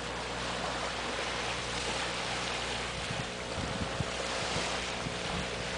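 Shoreline ambience: a steady wash of small waves and wind, with a faint low steady hum underneath. From about halfway through, wind knocks on the microphone.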